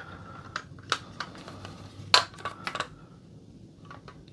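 Sharp clicks and taps of hard plastic parts of a toy grapnel gun prop replica being handled, with a cluster of clicks in the first three seconds, the sharpest about two seconds in, then a few fainter taps.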